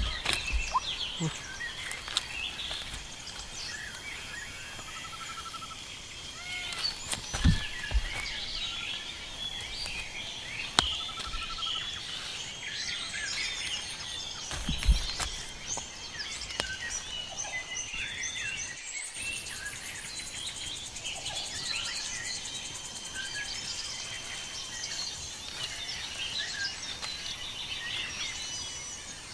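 Many small birds chirping and calling over a steady background hiss, with a few dull thumps of hands pressing and patting wet earth, the loudest about seven and fifteen seconds in.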